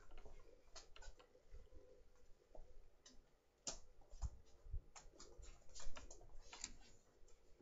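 Irregular clicks, taps and a few soft low thumps: handling noise from a laptop with a webcam being carried while walking.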